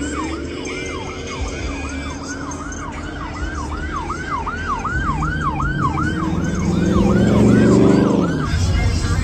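Siren yelping in quick repeated falling sweeps, about two and a half a second, stopping about eight and a half seconds in. Under it a car engine revs, loudest near the end and then dropping away.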